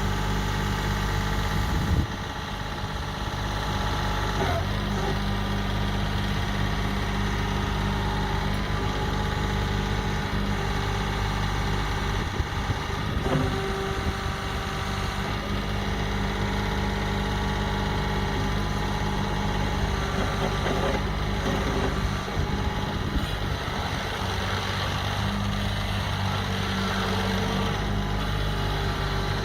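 The 25 hp Kubota diesel engine of a Cougar CG827 track loader running steadily, its pitch shifting a little now and then, with a sharp knock about two seconds in and a few lighter knocks later.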